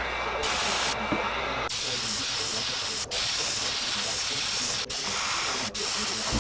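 Airbrush spraying metallic paint through a mesh screen onto a crankbait body to lay down a scale pattern: a steady hiss in several spurts, with short breaks where the trigger is let off.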